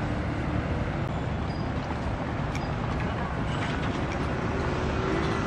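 Passenger ferry's engine running as the boat comes in to the pier, a steady low rumble. A humming tone joins in about four and a half seconds in.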